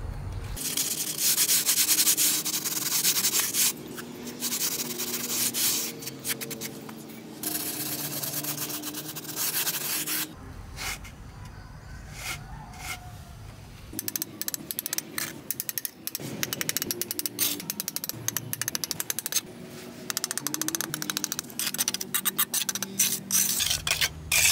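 Rapid rasping strokes of a hand tool rubbing or scraping on a small workpiece, in several stretches broken by short pauses.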